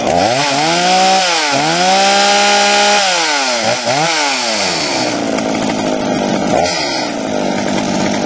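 Two-stroke chainsaw running, revved up hard twice in the first few seconds, blipped quickly a couple of times, then dropping back to a lower, steady run with one more short blip near the end.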